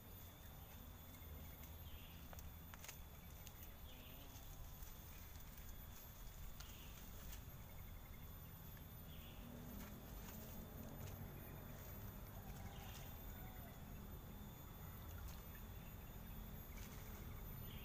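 Faint outdoor ambience: a steady, high-pitched insect drone over a low rumble, with short soft calls every few seconds and a few faint clicks.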